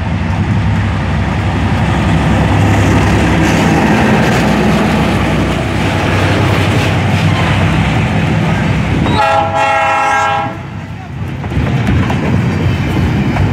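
EMD GR12W diesel locomotive passing close by under power, its engine running loud. About nine seconds in a horn sounds for roughly a second. After it, the wheels of the container flat wagons clatter steadily over the rails.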